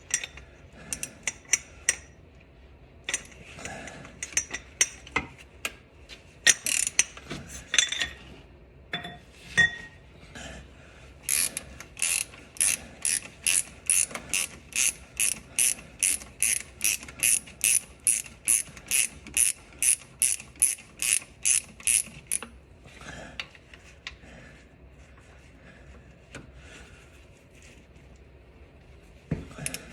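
Socket ratchet clicking in a steady run of about three clicks a second while a 15 mm starter mounting bolt is loosened, after some scattered clinks of tools on metal.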